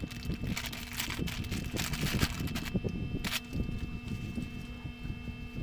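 Plastic packaging bag crinkling and rustling as a nylon chest-mount strap harness is pulled out and handled, with light knocks from the straps and clip, over a faint steady hum. The crinkling is densest in the first half and ends with a sharp rustle a little past the middle.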